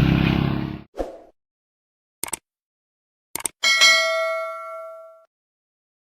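A motorcycle engine's running cuts off abruptly about a second in. Three short clicks follow, then a single bell-like ding that rings out and fades over about a second and a half.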